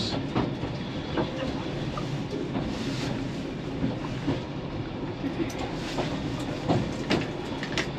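Narrow-gauge Talyllyn Railway carriage running along the track, heard from inside the wooden compartment: a steady rumble with irregular clicks and knocks from the wheels on the rails.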